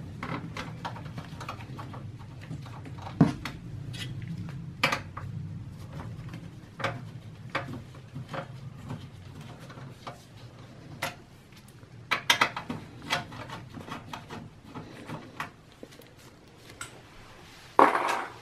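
Screws being worked out of the back of a steel PC case: scattered small metallic clicks and taps, with a louder clatter about twelve seconds in and a sharp knock near the end.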